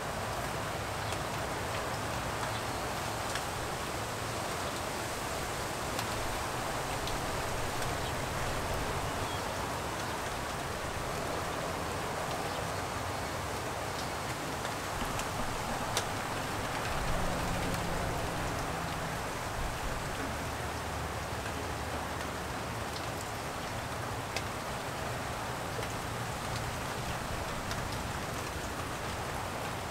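Light rain falling steadily: an even hiss with scattered drop ticks, over a faint low rumble.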